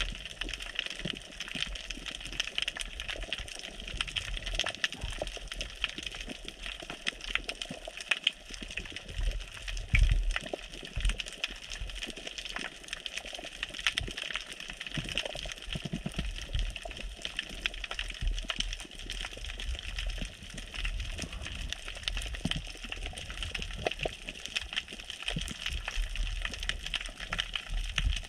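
Underwater reef ambience: a steady crackle of fine clicks over a low rumble of moving water, with one louder thump about ten seconds in.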